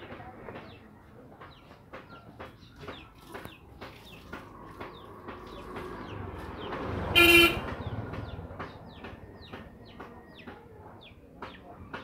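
A single short honk of a vehicle horn about seven seconds in, as a vehicle passes with a low rumble that swells and fades. Scattered short clicks and chirps run throughout.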